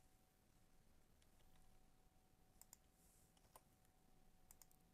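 Near silence with a few faint computer mouse clicks, scattered singly and in pairs.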